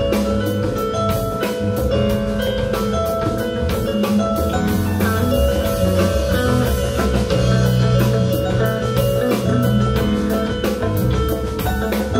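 Live band playing an instrumental passage to a steady beat: electric guitar over drum kit, bass and keyboard, with no singing.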